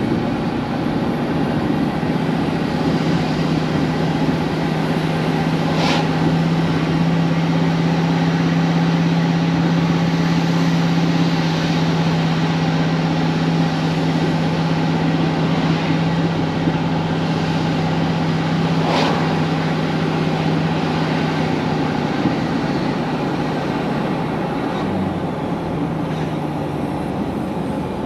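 A vehicle driving along at steady speed: a constant engine drone with a held low hum over even tyre and road noise. Two brief faint clicks come through, about a fifth of the way in and again about two thirds in, and the hum eases off near the end.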